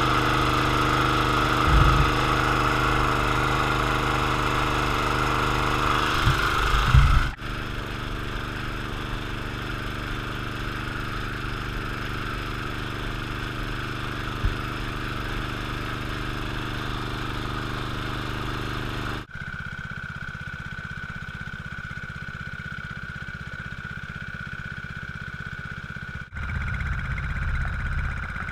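Briggs & Stratton lawn mower engine running steadily at a constant speed, pushing a homemade pontoon boat, with its wake churning the water. The sound jumps abruptly in loudness and tone three times, about 7, 19 and 26 seconds in.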